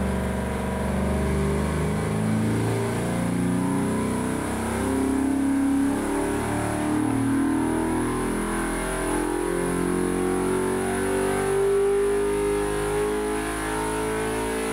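Gen 3 Hemi V8, built from a 5.7-litre Chrysler engine out to about 400 cubic inches, running on an engine dynamometer. Its note holds steady at first, then climbs slowly in pitch through the second half as the revs rise.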